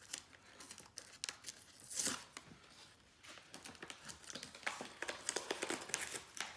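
Plastic packaging of a new wiper blade crinkling and crackling as it is handled and pulled open, in irregular crackles that grow denser over the last couple of seconds.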